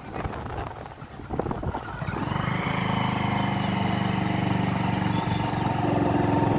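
Motorcycle engine that comes in about two seconds in and runs steadily, after a short stretch of gusty wind rumble on the microphone.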